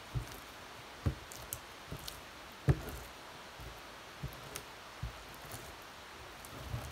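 Hands squishing and pressing glittery slime on a tray, with soft sticky clicks and a few irregular dull thumps, the loudest about two and a half seconds in.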